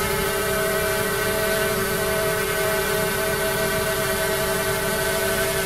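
Xiaomi Mi Drone 4K quadcopter in flight, its propellers giving a steady whine made of several held tones.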